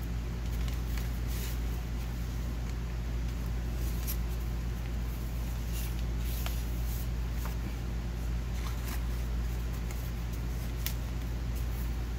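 A steady low hum throughout, with soft, scattered paper rustles and light taps as the pages of a handmade junk journal are handled and turned.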